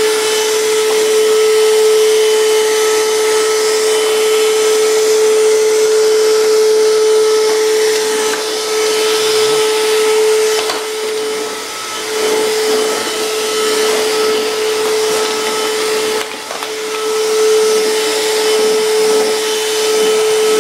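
Electric vacuum cleaner running with a steady motor whine. The tone breaks briefly twice, about halfway through and again about three-quarters through.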